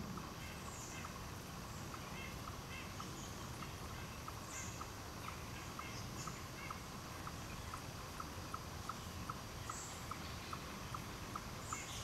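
Woodland ambience: a low rumble of wind, an even run of soft ticks about two or three a second that grows more distinct in the second half, and a few short, high bird chirps.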